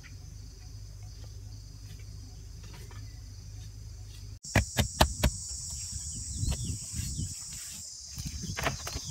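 Insects chirring steadily in a high-pitched chorus. About halfway through the sound cuts to a louder take: a handful of sharp knocks in quick succession, then hands scraping and scooping loose dirt under a stronger insect chorus.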